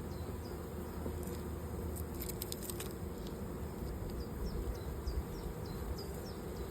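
Steady buzzing of a honeybee colony around an open hive, a strong colony with a double brood box full of bees. A few faint short clicks come about two seconds in, and small high falling chirps sound now and then over the hum.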